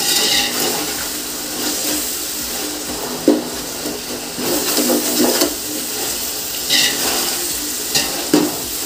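Tomato and onion masala frying in oil in a large biryani pot, a steady sizzle while a ladle stirs it, with a few short scrapes of the ladle against the pot. The tomatoes are cooking down to a mash.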